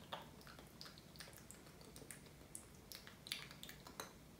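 Carbonated kombucha fizzing in a glass: a faint, irregular crackle of tiny pops from bursting bubbles, a few louder pops near the end as the glass comes close.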